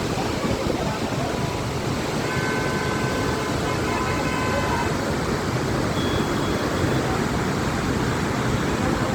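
Steady loud rush of water pouring from a large dam's spillway. A few faint high steady tones sound briefly over it from about two seconds in.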